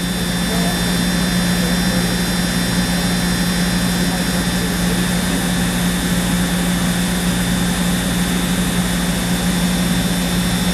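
CNC machining center running a drilling cycle in aluminum with its coolant on: a steady hum with a constant high whine.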